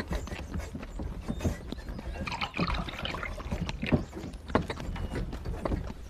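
Horse-drawn carriage on the move: horses' hooves clip-clopping in irregular knocks over the carriage's steady low rumble.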